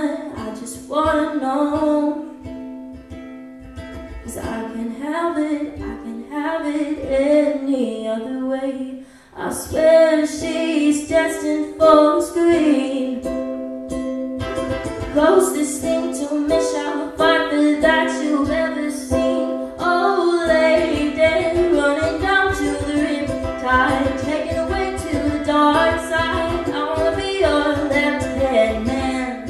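A young woman singing live to her own strummed ukulele. The sound dips briefly about nine seconds in, then the strumming and singing carry on.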